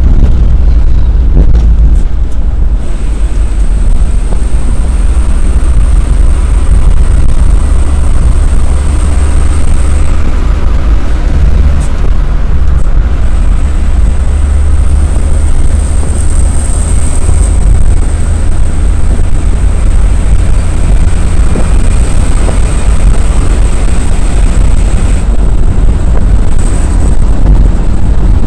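Loud, steady engine and road rumble inside a vehicle driving at highway speed, picked up by a dashboard camera. A thin high whine runs over it and drops out twice for a few seconds.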